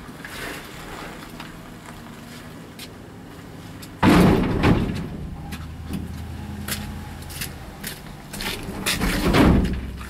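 Wooden pallet thrown onto a stack of pallets in a pickup truck bed: a loud wooden crash about four seconds in, then knocking and scraping as it is shoved into place, with another loud scrape and bang near the end.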